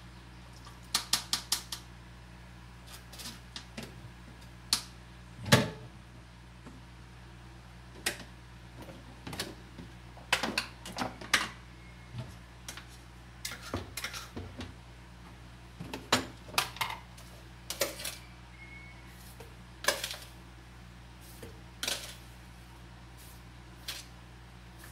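Kitchen utensils being handled on a counter: scattered clicks and knocks of a plastic bowl, strainer and jug, with a quick run of taps about a second in. A low, steady hum lies underneath.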